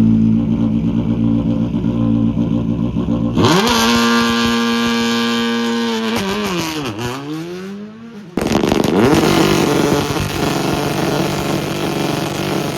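Rally car engines: one running low and steady, then a sudden switch to engines at high revs close by, their pitch swooping down and back up as they go by. The sound breaks off abruptly about two-thirds through and starts again.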